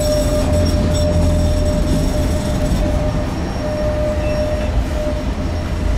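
Stadler Citylink electric tram-train in motion, heard from inside the passenger saloon: a steady running rumble with a single high steady whine over it, which fades out near the end.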